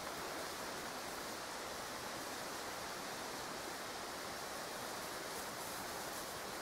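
Faint, steady background hiss with no distinct events: the quiet of the woods between the hounds' bouts of baying.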